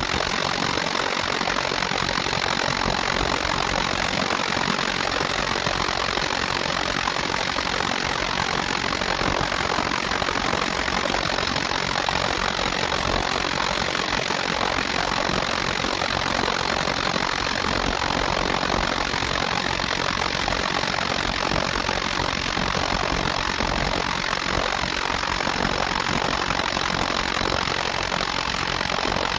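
Construction drilling machinery running continuously at a steady level, a dense unbroken mechanical noise.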